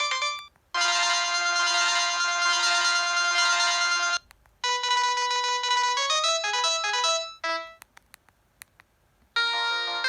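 Preloaded ringtones of a Samsung SCH-N356 mobile phone playing one after another. A tune ends just after the start, a held electronic chord follows for about three seconds, then a short melody plays. After that comes a quiet gap with a few faint clicks, and a new tune begins near the end.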